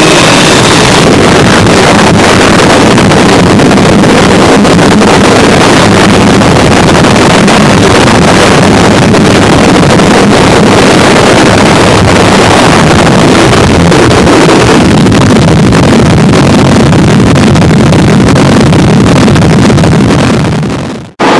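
Harsh noise music: a dense, distorted wall of noise at full loudness with a rumbling band low in the range. It fades out quickly about twenty seconds in as the track ends.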